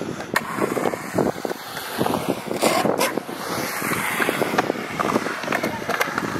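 Skateboard wheels rolling on concrete, with scattered sharp clacks and knocks of boards.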